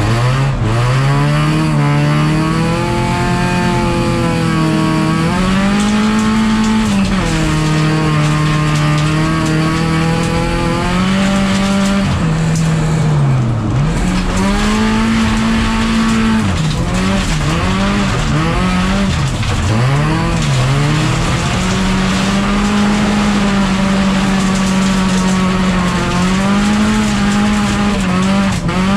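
Folk-race car's engine heard from inside the cabin under hard racing load, its pitch repeatedly climbing and dropping with gear changes and throttle lifts. Around the middle there is a quick series of dips and rises.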